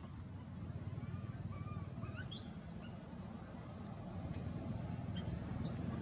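Monkey squeaks: a few short, faint, high-pitched squeals in the first half, one rising sharply, then scattered brief chirps, over a low steady background noise.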